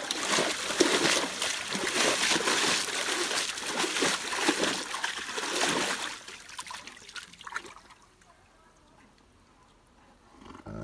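A wolf splashing in a round water tub, the water sloshing and splattering for about six seconds, then dying away to quiet.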